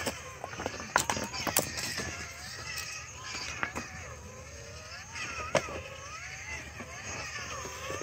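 Electric motor whine of an RC rock crawler's 1600kv brushless outrunner, its pitch gliding up and down with the throttle as the truck crawls over river cobbles. Sharp clicks and knocks of the tires and chassis against the rocks come through a few times.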